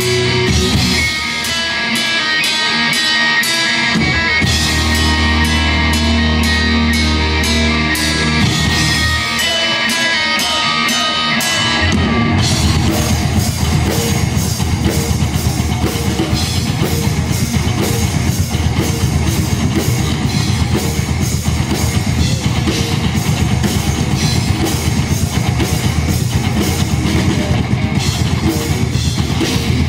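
Rock band playing live: electric guitars, bass guitar and drum kit. Guitar and bass notes ring over steady cymbal strikes at first, then about twelve seconds in the drums come in fully with fast, dense beats.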